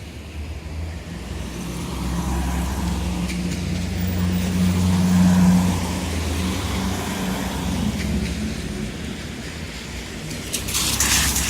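Town traffic on a wet road: a vehicle's engine rumbles past, loudest about halfway through, over the hiss of tyres on wet tarmac. A brief loud hiss comes about a second before the end.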